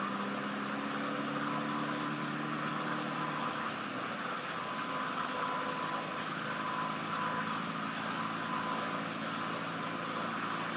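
A vehicle engine idling, its low hum fading out about three to four seconds in, over a steady hiss with a faint steady high tone.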